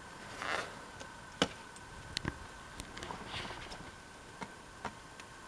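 Scattered sharp clicks and knocks, about seven in all and a few close together near the two-second mark, with short scraping hisses about half a second in and again around three and a half seconds, over a faint steady hum.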